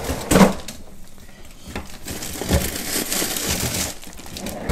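A knock about half a second in, then the crinkling and rustling of a plastic Ziploc freezer bag full of frozen sliced leeks being handled.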